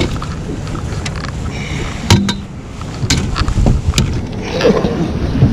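Wind and water noise in a small fishing boat, with a few sharp knocks and clatters as a northern pike is netted beside the boat; the loudest knock comes about two seconds in.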